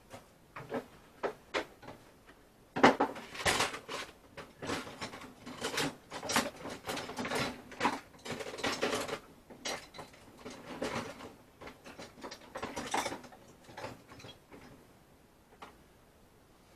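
Hand tool working on metal fastenings, clicking and rasping like a ratchet: a few sharp single clicks at first, then a run of irregular grating strokes lasting about ten seconds.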